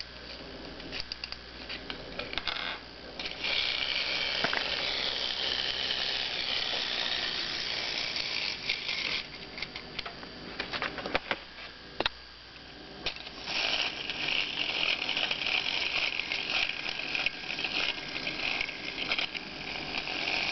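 Clockwork motor of an antique German tinplate wind-up penguin: ratchet clicking as it is wound, and a steady whirr of the spring-driven gear train running in two long spells, the second starting about thirteen seconds in.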